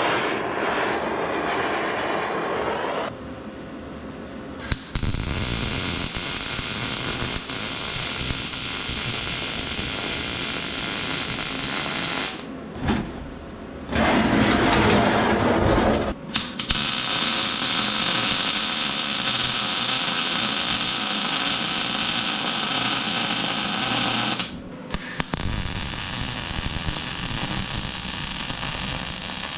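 Vulcan OmniPro 220 welding arc crackling in runs of several seconds, cutting off abruptly between beads four times, with a different, deeper sound for about two seconds in the middle.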